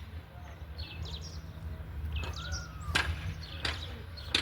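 Hammer blows on the metal of a locked truck door, three sharp clanks about 0.7 s apart in the last second and a half, with a faint metallic ring after each. Birds chirp briefly earlier, over a steady low rumble.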